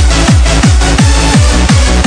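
Instrumental stretch of a UK hardcore dance track: a fast, steady kick drum at about three beats a second under a bassline and synth chords.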